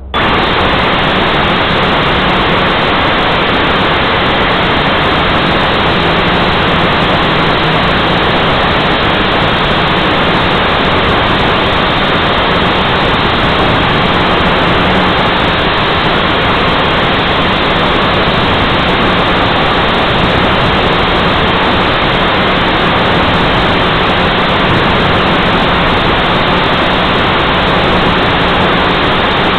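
Heli-Max 230 Si quadcopter's motors and propellers picked up by its own onboard camera microphone: a loud, steady rushing noise with a faint hum underneath, cutting in suddenly at the outset.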